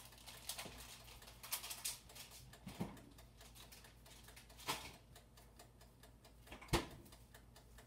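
Faint kitchen handling noises: scattered light clicks and rustles as a plastic bread bag is handled and a refrigerator is opened, with two sharper knocks, the louder one near the end.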